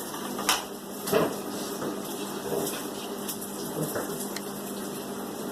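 A few light clinks and knocks of kitchenware, spread over several seconds, against a steady background hiss with a faint hum.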